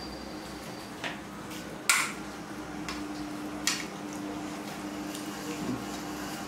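A few light clinks of dishes at a meal table, a ceramic bowl and steel plate knocked as food is eaten by hand, the loudest about two seconds in. A faint steady hum runs underneath from about halfway.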